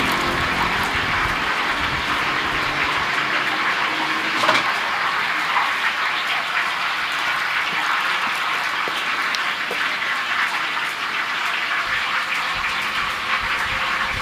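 Steady sizzling hiss of hot oil in a street-stall deep fryer, with one short knock about four and a half seconds in.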